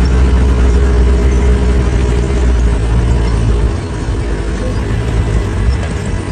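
A vehicle engine running at a steady low idle, its level easing slightly about four seconds in.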